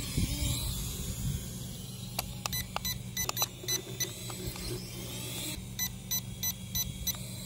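Q10 mini FPV camera drone's propellers buzzing in flight as a steady low hum. Twice, a run of quick high electronic ticks, about five a second, sounds over it.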